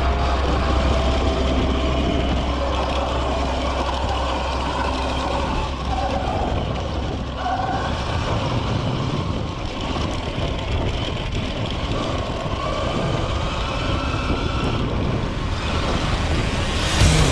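Electric dirt bike being ridden off-road: the motor's whine rising and falling with speed, over a steady rush of wind and tyre noise.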